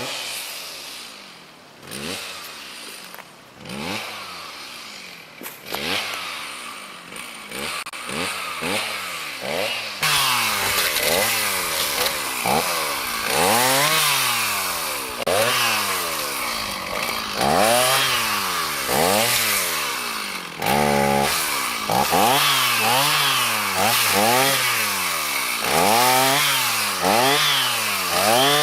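Chainsaw cutting through a standing tree while felling it, the engine revving up and down again and again. It starts with a few separate revs, then about a third of the way in becomes louder, continuous cutting, with the pitch still rising and falling over and over.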